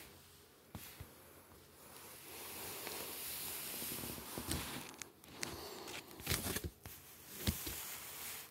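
Rustling and scuffing close to the microphone as a hand plays with a cat, with several sharp knocks in the second half.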